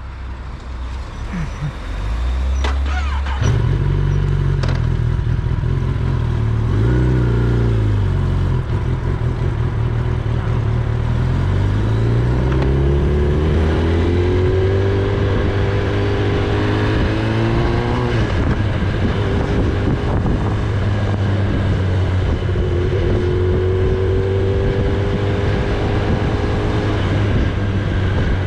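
Kawasaki Ninja ZX-10R's inline-four engine heard from the rider's seat as the bike pulls away and rides along a street. A steady low engine note comes in a few seconds in. It then rises in pitch under acceleration, drops sharply, and rises again.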